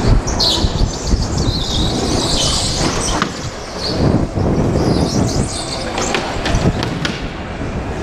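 Go-kart running at racing speed with a steady low rumble, its tyres squealing on the smooth concrete floor as it corners, loudest from about half a second to three seconds in. A few sharp clicks or knocks come in near the end.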